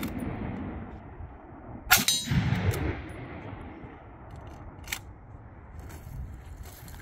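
A single rifle shot about two seconds in, followed by the clang of the hit steel target ringing out. A short sharp click comes near five seconds.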